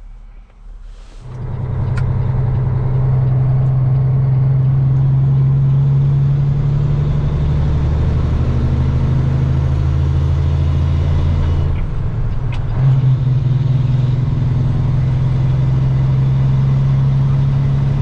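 Peterbilt semi truck's diesel engine and road noise heard from inside the cab at highway speed, a steady low drone that starts suddenly about a second in. Its note breaks briefly about twelve seconds in, then carries on.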